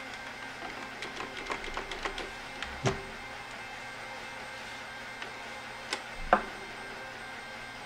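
Handling noises from a plastic robot vacuum on a tabletop: a run of small plastic clicks and rustles as packing tabs come off its bumper, a knock about three seconds in, then a thump near the end as the flipped vacuum is set down upside down.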